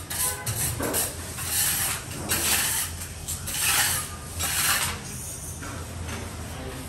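A hand-held sponge pad is scrubbed in repeated swishing strokes across glazed ceramic wall tiles, wiping grout haze off the tile faces after grouting. The strokes ease off to a quieter rubbing about five seconds in.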